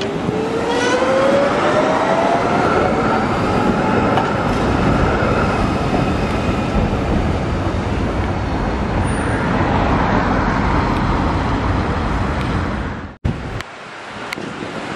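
PCC tram of the 7900 series accelerating: its traction motors whine, rising in pitch over the first few seconds, over the steady running noise of wheels on rails. The sound cuts off abruptly about 13 seconds in and comes back quieter.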